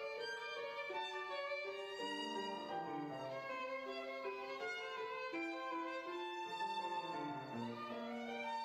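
Violin playing a classical piece, accompanied by a grand piano, with a steady succession of notes.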